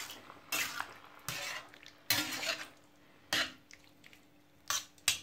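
A utensil stirring minced meat and tomato sauce in a frying pan: about six separate strokes against the pan, with short quiet gaps between.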